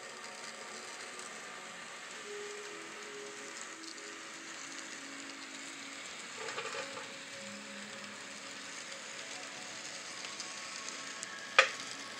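N scale model trains running on the layout track: a steady faint hiss and rattle of wheels and motors. There is a brief louder rustle about halfway through and one sharp click about a second before the end.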